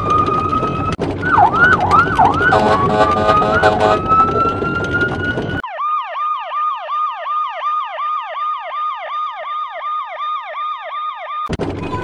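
A police siren sound effect in two variations. First, a horn-like tone rises slowly in pitch over loud noise, broken by a few quick siren swoops. Then, about six seconds in, it cuts to a clean, thin-sounding police siren in fast yelp, about four falling sweeps a second, which switches back to the noisy version just before the end.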